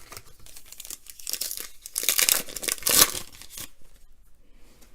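Foil wrapper of a trading-card pack being torn open and crinkled, loudest about two to three seconds in.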